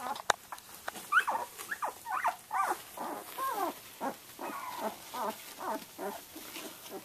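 Twelve-day-old Samoyed puppies whimpering and squeaking: a string of short, high cries that slide up and down in pitch, one after another. There is a sharp click about a third of a second in.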